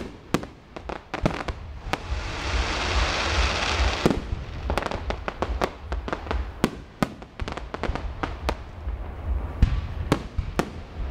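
Aerial fireworks display: a rapid, irregular string of sharp bangs and crackling pops, with a steady hiss from about two to four seconds in that ends in a loud bang.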